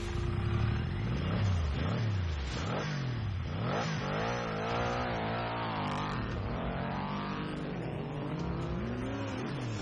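Motorcycle engine revving again and again, its pitch rising and falling several times.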